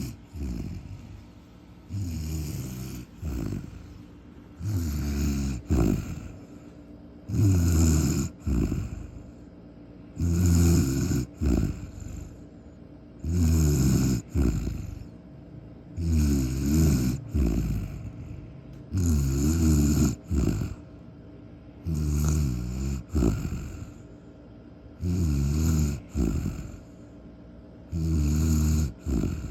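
Deep snoring in a steady rhythm, about one snore every three seconds. Each drawn-out snore is followed at once by a shorter second one.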